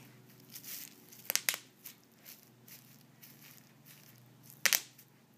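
Bubble wrap crinkling as a cat moves about on it, with a quick cluster of sharp snaps about a second and a half in and another pair near the end.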